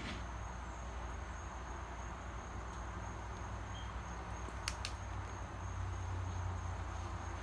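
Quiet steady background noise with a low hum and a thin, steady high-pitched tone, broken by two sharp clicks a little past the middle.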